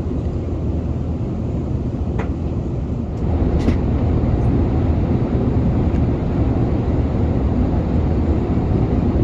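Steady low roar of an Airbus A380 cabin in flight. The noise steps up slightly about three seconds in, and two faint clicks come a couple of seconds in.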